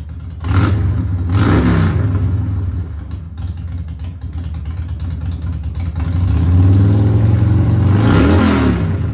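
Motorcycle engine idling with throttle blips: two short revs about half a second and a second and a half in, then a longer rev near the end that falls back to idle.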